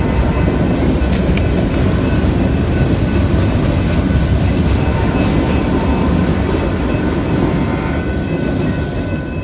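Freight cars of a mixed freight train rolling past close by: a steady loud rumble of steel wheels on the rails, with thin high ringing tones over it and a few sharp clicks about a second in. The rumble eases slightly near the end.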